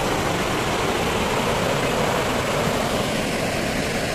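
Loud, steady rush of heavy water pouring over a small hydroelectric dam's spillway.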